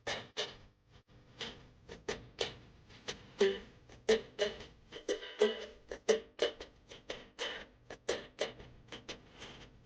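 A run of sharp, irregular knocks, about two or three a second, many with a brief ringing tone.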